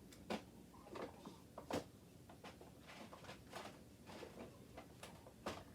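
Faint, irregular light taps and clicks: fingertips tapping on an iPad's touchscreen, with a slightly louder tap about two seconds in and another near the end.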